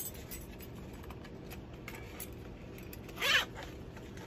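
Quiet handling of nylon harness webbing: the strap rustling and sliding through a metal tri-glide and D-ring, with light ticks of the metal hardware and one short zip-like swish a little past three seconds in as the strap is pulled through.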